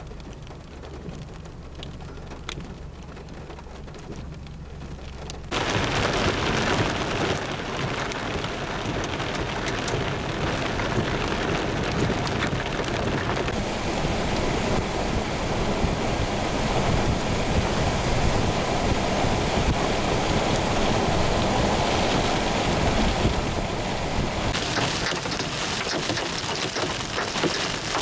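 Thunderstorm: heavy rain and wind making a loud, steady noise that starts suddenly about five seconds in, after a quieter opening.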